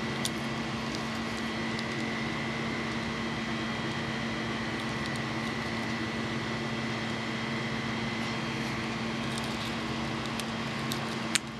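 Steady background hum with fan-like noise and a few faint clicks, plus a sharper click shortly before the end.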